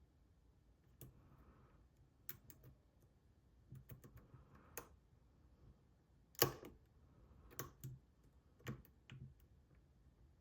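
Faint, scattered metallic clicks and light scrapes of a lock pick working the pin stack of a PacLock 90A Pro padlock under tension from a pry-bar tension wrench, with one sharper click about six and a half seconds in.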